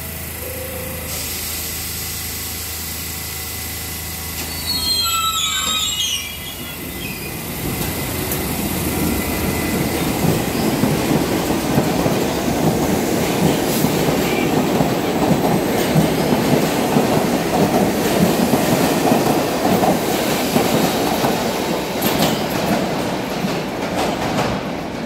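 R68A subway train standing at the platform with a steady hum, then a brief squeal about five seconds in as it starts to move. It follows with the rising, sustained rumble of its wheels on the rails as the train pulls out of the station.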